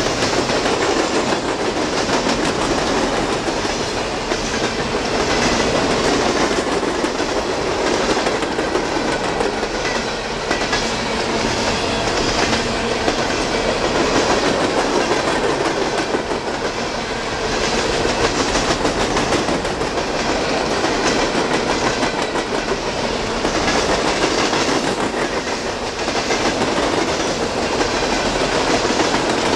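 Norfolk Southern freight train's hopper cars rolling past at speed: a continuous rumble and rattle of steel wheels on rail, with repeated clickety-clack as the wheels cross the rail joints.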